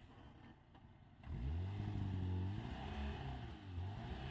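A small sedan's engine revving under load as the car moves slowly over rough dirt ground, coming in loud about a second in, its pitch rising and falling.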